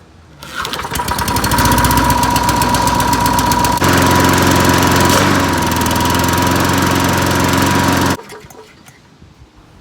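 Snapper lawn mower's small engine running loud and hard, its note changing abruptly about four seconds in, with a steady high tone over it, then cutting off suddenly after about eight seconds.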